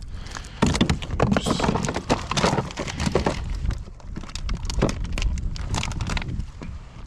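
A rapid, irregular run of knocks and clicks, uneven in spacing and strength, stopping shortly before the end.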